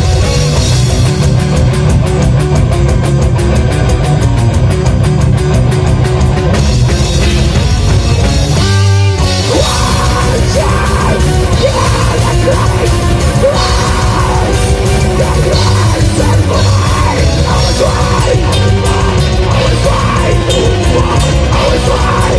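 Black metal band playing a song at rehearsal, with distorted electric guitars and drums. About nine seconds in there is a brief break, then the band comes back in.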